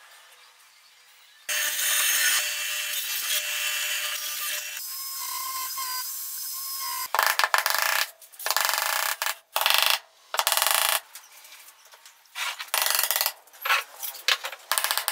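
Hand tools working pine boards in short cut-together clips: about a second and a half in, a steady scraping on wood begins and runs about five seconds, then a string of short scraping and knocking bursts, among them a hammer tapping wooden dowels into the boards.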